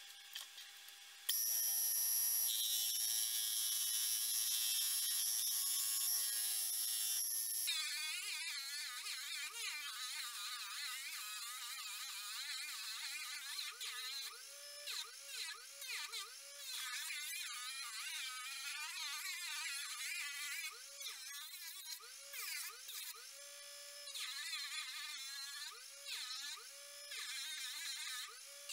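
A Dremel rotary tool switches on about a second in and runs at high speed with a steady high whine. From about eight seconds in, a piece of pine is sanded against its small sanding drum, and the pitch wavers up and down as the wood is pressed on and eased off.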